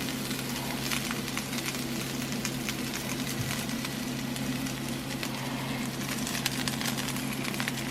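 Birria tacos frying on a hot comal: a steady sizzle scattered with small crackles and pops, with a steady low hum underneath.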